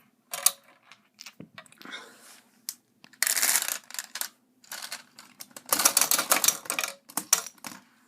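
Bursts of quick plastic clicking from a Lightning Bison B-daman Crossfire toy marble launcher being rapid-fired, with the longest bursts about three and six seconds in.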